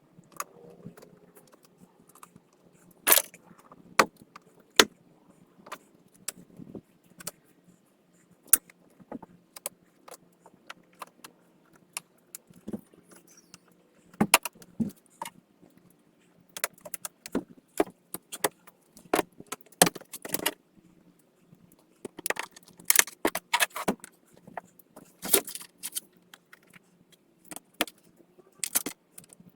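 Irregular sharp clicks, taps and light rattles of hard plastic: a UTV's plastic body panels and push-in button fasteners being handled and snapped back into place, with busier clusters of clicking in the middle and later part.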